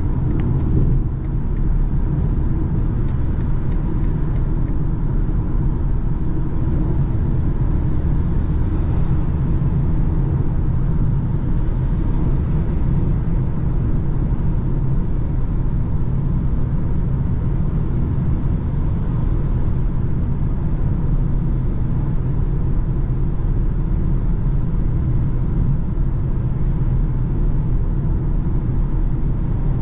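Steady cabin noise of a BMW cruising at autobahn speed: a low engine drone with tyre and road rumble, holding even throughout.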